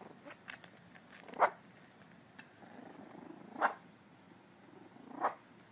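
Puppies growling softly in play, broken by three short, sharp yaps spread across the few seconds.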